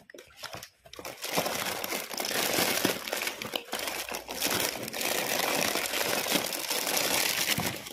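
Plastic snack packets being handled and shuffled: a steady crinkling and crackling of wrappers, with a couple of brief gaps in the first second.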